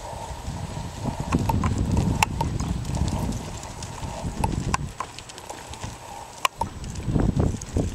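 Hoofbeats of a paint horse loping under saddle on soft arena dirt: an uneven dull thudding with scattered sharp clicks.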